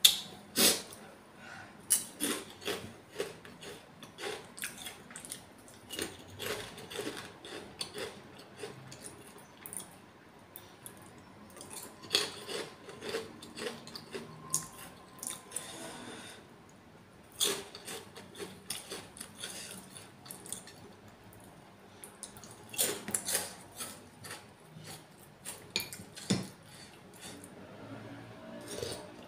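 Spoons clinking and scraping against a ceramic soup bowl and plate, in scattered clusters of light clicks, with close-miked chewing in between.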